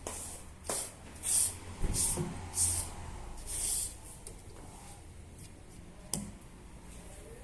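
Wiping up spilled fuel alcohol: about four short, scratchy swipes in the first four seconds, with a dull knock about two seconds in and a sharp click a little after six seconds.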